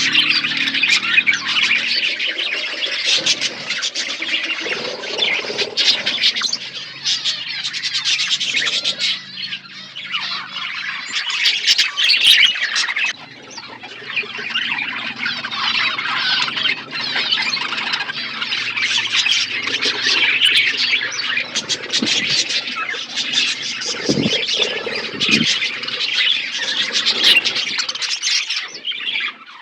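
A flock of budgerigars chattering and squawking without a break, many warbling and chirping calls overlapping.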